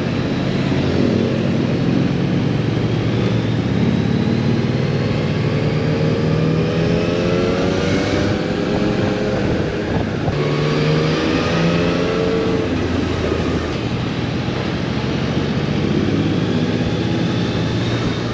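Motorcycle engine heard from the rider's seat while riding in traffic: its pitch climbs steadily from about five seconds in, drops at a gear change near ten seconds, then climbs again, over a steady rush of road and wind noise.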